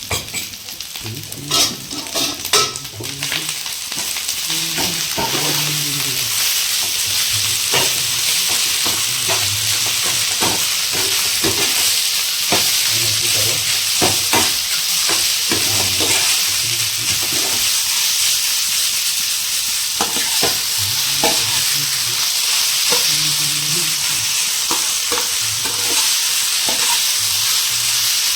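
Vegetable fried rice sizzling steadily in a hot pan as it is stirred, with irregular clicks and knocks of the stirring utensil against the pan.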